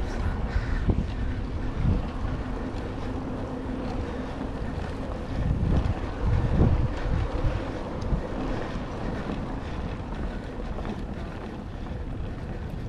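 Wind buffeting the microphone with a low rumble, gusting loudest about five to seven seconds in, over a faint steady hum.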